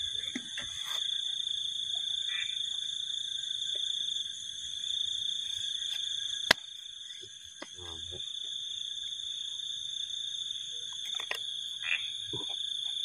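Steady high-pitched chorus of night insects, with a single sharp click about six and a half seconds in.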